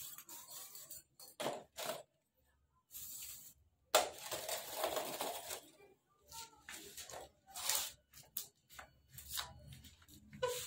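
Plastic bags rustling and crinkling as they are handled, together with potting soil being worked by hand. Irregular rustles come and go, with a longer stretch of crinkling about four seconds in, then many short ones.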